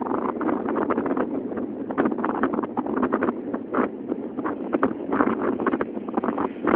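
Gusty wind buffeting the phone microphone in a steady crackling rush, over the continuous engine noise of a Learjet 45's twin turbofans.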